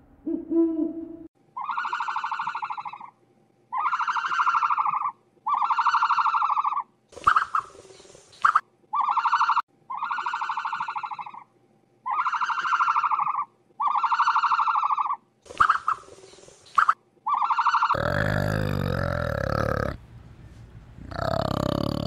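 An animal calling: a run of about nine steady, even-pitched notes, each about a second long. From about 18 s it gives way to a harsher, noisier call with a low rumble.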